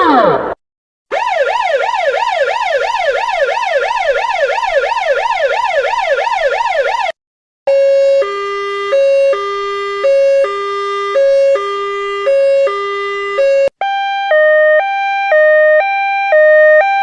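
A run of emergency vehicle sirens, one after another. First the end of a wail falls away. After a short break comes a fast electronic yelp sweeping up and down for about six seconds. After another break, a low two-tone hi-lo siren alternates about once a second, and near the end a higher two-tone siren alternates faster.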